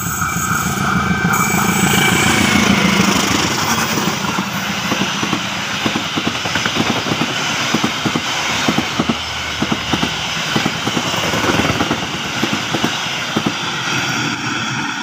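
CC203 diesel-electric locomotive passing close by with its engine running hard, loudest about two to three seconds in, followed by its passenger coaches rolling past with a steady clatter of wheels on the track.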